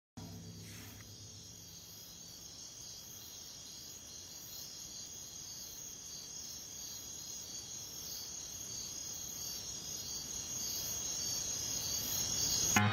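A steady chorus of crickets chirping in pulses, growing gradually louder.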